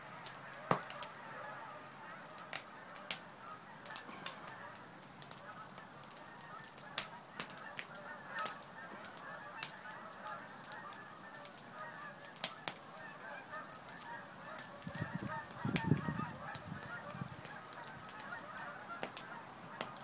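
Many geese honking at once in a steady chorus, with scattered sharp pops and crackles from a wood fire. About three-quarters of the way through, a louder low rumble lasts a couple of seconds.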